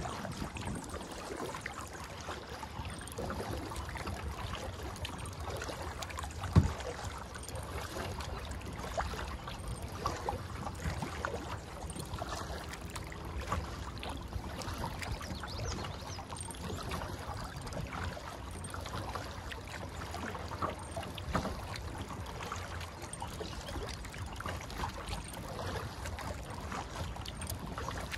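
Kayak paddling: the paddle dips and splashes, and water trickles and drips off the blades, with a single louder knock about six and a half seconds in.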